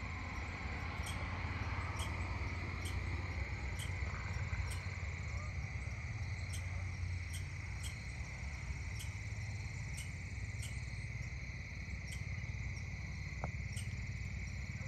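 Dusk chorus of crickets and other insects: a steady high trill with a separate short chirp repeating about once or twice a second, over a low steady rumble.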